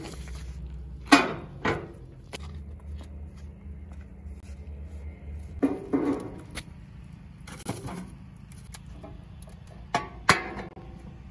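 Metal clanks and knocks at a wood-burning steel stove: a steel lid set down about a second in, split firewood logs knocking as they are loaded into the firebox around six seconds in, and the steel firebox door shut with two sharp clanks near the end. A low steady rumble sits underneath.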